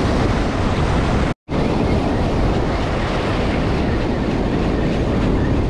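Ocean surf washing and breaking around the shallows, with wind rumbling on the microphone, a loud steady roar. The sound drops out completely for a split second about a second and a half in.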